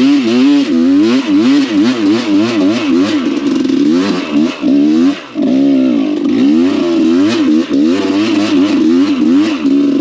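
Trail dirt bike engine revving up and down in quick, repeated throttle blips, with a brief drop in the engine note about five seconds in.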